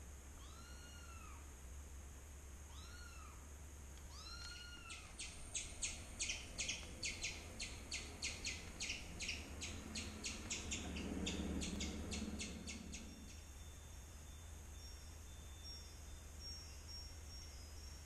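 Animal sounds from a television: a kitten meowing three times, then a squirrel's rapid chirping calls, about three a second for eight seconds, with a low sound rising under the last of them. Faint high chirps follow near the end, over a steady low hum.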